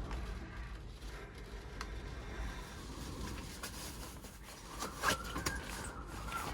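Storm wind buffeting a Daihatsu Hijet Cargo kei van, heard from inside the cabin as a steady low rumble with rain patter. A few small clicks and knocks come through, loudest about five seconds in.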